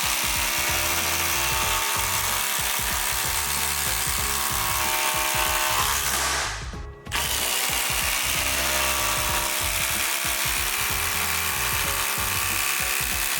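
Milwaukee M18 Fuel 2953 impact driver hammering long structural screws into OSB, two screws in a row, each about six seconds long, with a short break about six and a half seconds in.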